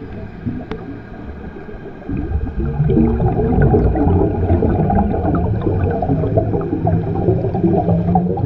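Underwater bubbling and low rumble of a scuba diver's exhaled air rising, getting louder about two seconds in.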